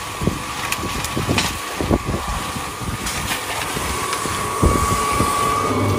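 Small electric cement mixer running, its drum turning with a steady hum, and irregular knocks as the concrete mix tumbles inside. A deeper hum joins near the end.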